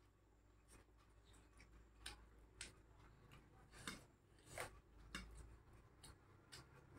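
Faint sounds of eating by hand, rice and curry taken from steel plates: a handful of short, scattered clicks and smacks from fingers and chewing.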